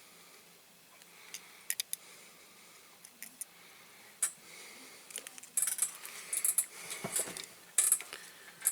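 Light metallic clicks and clinks of small diecast toy parts and hand tools being handled: a few scattered taps at first, then quicker, louder clusters of clinks in the second half.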